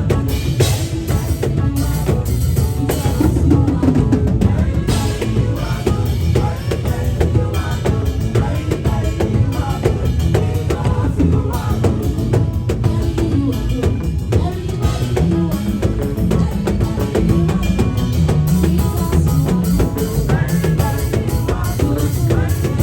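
Band music driven by a drum kit, with kick drum and snare strikes over a heavy bass line, playing without a break.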